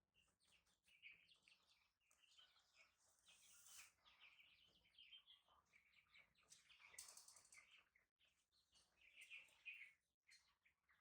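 Faint high-pitched chirps and squeaks, repeated irregularly, with brief hissy rustles about four and seven seconds in.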